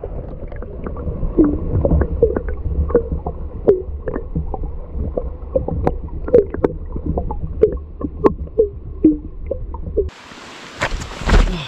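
Water in a stream pool heard from below the surface: a deep, muffled rumble with many bubble pops and small clicks. About ten seconds in, the open-air hiss of the falling water returns.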